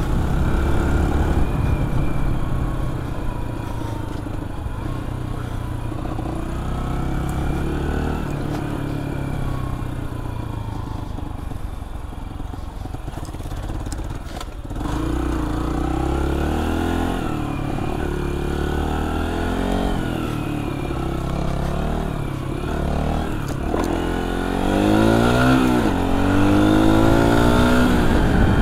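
AJS JSM 125 dirt bike's single-cylinder four-stroke engine running as it is ridden, its note rising and falling with the throttle. It is loudest near the end, where it revs up hard with its pitch sweeping down and back up.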